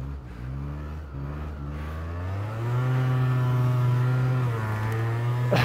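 A mid-size mountain snowmobile's 400cc single-cylinder fuel-injected engine running under throttle through deep snow. Its note wavers, then revs up about two and a half seconds in and holds higher and louder, easing off briefly near the end.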